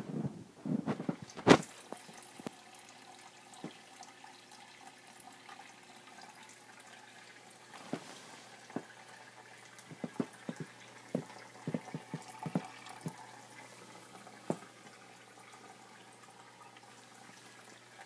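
A small terrarium waterfall trickling into a shallow pool, a faint steady splash with scattered drips and a low steady hum under it. Several handling bumps and a sharp knock come in the first couple of seconds.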